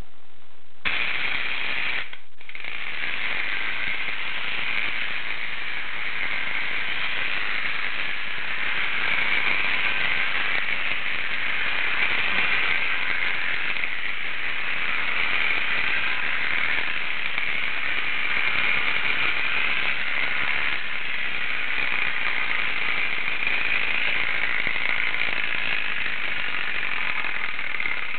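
Clockwork spring motor of a KOVAP tin toy Zetor 25A tractor running, its gear train giving a steady whir. It starts about a second in, breaks off for a moment, then runs on evenly.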